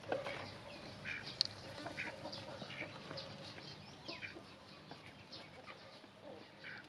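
Domestic ducks and chickens calling: short clucks and calls scattered throughout. One sharp click about a second and a half in is the loudest sound.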